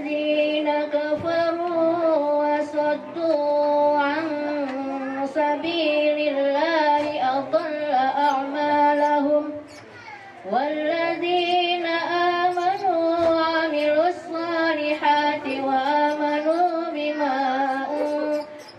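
A woman's voice chanting Quranic recitation in a slow melodic style into a handheld microphone, holding long ornamented notes that waver in pitch. She breaks off for a breath about ten seconds in, then resumes with a rising note.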